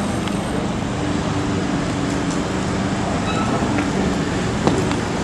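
Steady mechanical hum with a few low held tones, like running machinery or an idling engine, and one short sharp knock about four and a half seconds in.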